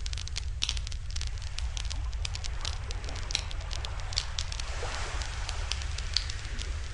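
Wood campfire crackling, with many small irregular pops over a steady low rumble.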